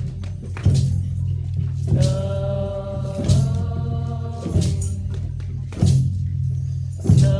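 A group of voices singing a slow chant over a steady low drone, with a drum struck on an even pulse about every second and a quarter.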